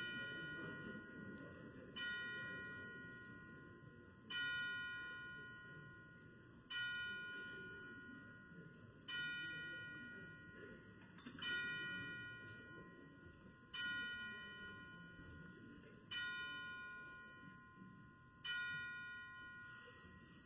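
A single bell tolled slowly and evenly, nine strikes about every two and a half seconds, each ring fading before the next.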